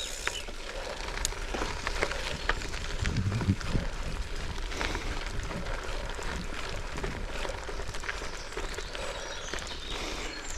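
Goodyear Connector gravel bike tyres rolling along an overgrown gravel trail, with a steady crackle of many small clicks.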